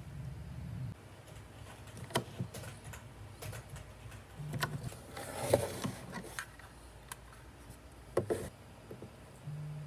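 Scattered small clicks and taps of things being handled on a desk, with a short rustle a little past halfway.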